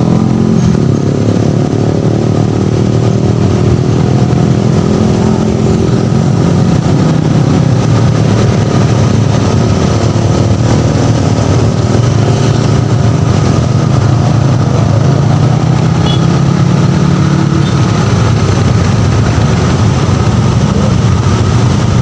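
Motor vehicle engines, mostly motorcycles, running close by in roadside traffic. The sound is a loud, steady engine drone whose pitch rises and falls slightly a couple of times.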